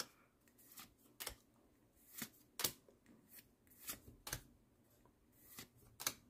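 Pokémon trading cards being flipped one at a time in the hands, each card slid off the stack and tucked to the front with a faint papery flick. About a dozen short flicks, spaced unevenly.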